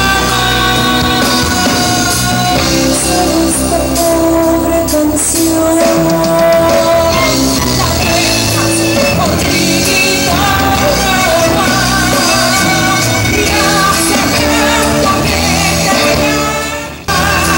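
Live Argentine zamba played by a folk band with a woman singing the melody. The sound drops out for an instant near the end.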